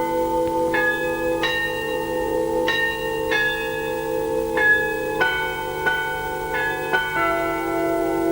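Bell-like chimes playing a slow melody, about ten struck notes each ringing on, over a steady held chord and a low hum.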